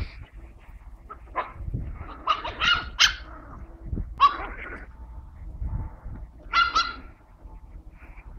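Dogs barking excitedly while chasing in play: short, sharp, high barks, a quick run of them about two to three seconds in, one near four seconds and a pair near seven seconds.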